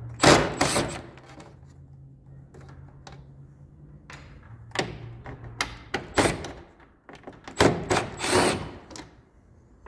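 Cordless drill-driver backing screws out of a mini-split indoor unit's plastic front casing. A loud burst of noise comes right at the start, then a low steady hum for a few seconds, then a string of clicks and plastic knocks in the second half.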